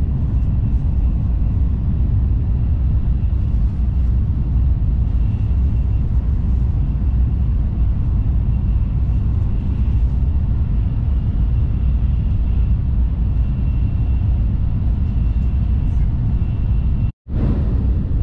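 Shinkansen bullet train running at speed, heard from inside the passenger cabin: a steady low rumble with a faint, steady high whine above it, briefly cut off near the end.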